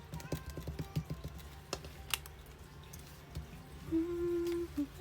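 Small sharp clicks and taps of hard resin keycaps and plastic packaging being handled, bunched in the first two seconds. A steady low held tone comes in about four seconds in.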